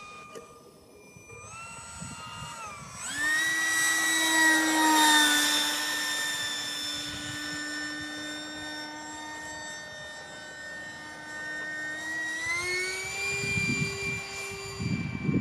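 Remote-controlled model Eurofighter jet flying overhead, its engine giving a high whine with several tones at once. The pitch climbs sharply about three seconds in and the sound is loudest just after, then it climbs again near the end.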